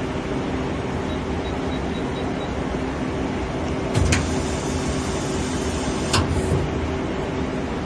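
Okuma Heritage ESL-10 CNC lathe running with a steady mechanical hum, with two sharp metallic knocks about four and six seconds in.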